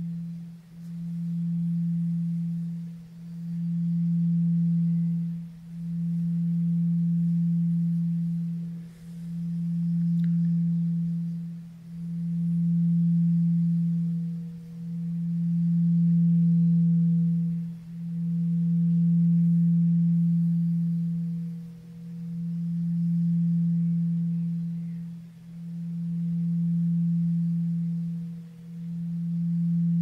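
Tibetan singing bowl sounding a sustained low tone, the note E (MI) at 164 Hz, with a faint higher overtone. The tone swells and fades in even waves about every three seconds without stopping.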